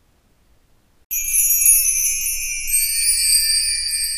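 About a second of near silence, then a bright, shimmering jingle of small bells and chimes starts suddenly and carries on steadily.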